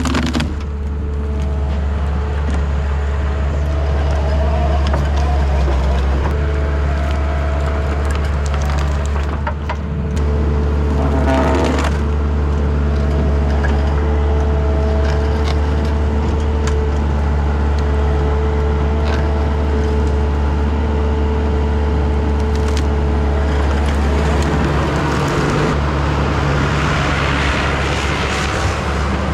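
Takeuchi TL10 compact track loader's diesel engine running steadily under work, with a hydraulic tree shear in use; a few sharp cracks of wood splitting come about ten to twelve seconds in.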